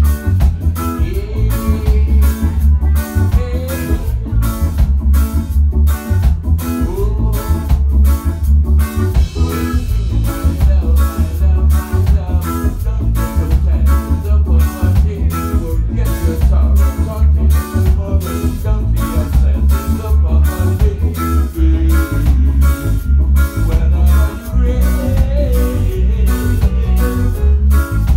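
Live reggae band playing, with a heavy, deep bass line under drums and electric guitar.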